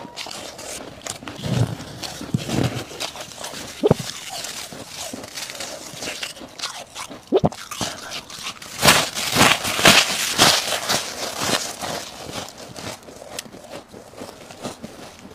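Freezer frost ice being scooped up by hand, then bitten and chewed: soft crunching at first, then loud, dense crisp crunching from about 9 to 12 seconds in as a mouthful of frost is eaten.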